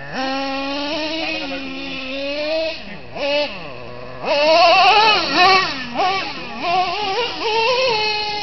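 Traxxas Revo 3.3 two-stroke nitro engine revving up and down as the RC truck drives, a high whine whose pitch keeps rising and falling and drops briefly to idle near the middle before climbing again.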